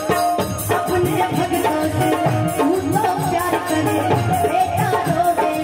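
Live Bhojpuri stage song: a woman singing into a microphone over a band with hand drums and a steady percussion beat.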